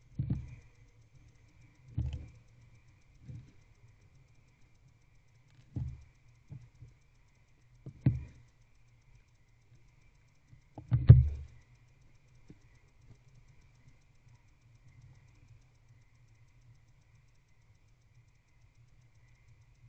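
Dull, irregular thumps and knocks inside a wooden owl nest box as a barn owl tears at and eats a mouse: about seven bumps, the loudest about eleven seconds in, over a faint steady electrical hum from the camera setup.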